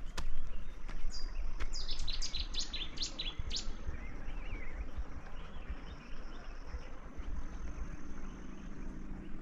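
A songbird sings one quick phrase of about eight sharp, high, falling notes a second or so in, followed by thin, high, drawn-out tones later on, over a steady low rumble.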